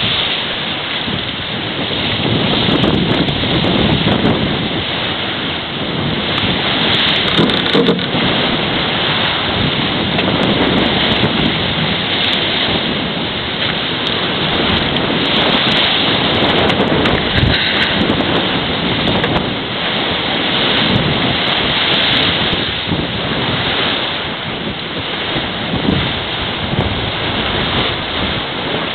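Wind buffeting the microphone over a continuous rush of water along the hull of a Farr 55 racing yacht sailing fast downwind.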